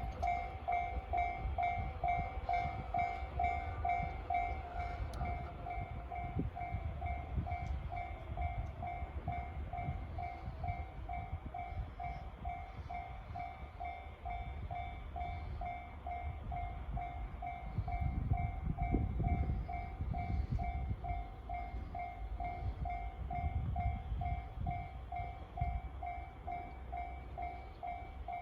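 Japanese level-crossing alarm in the JR standard tone: an electronic bell ringing about twice a second without a break, over the low rumble of a passing train that swells twice in the second half.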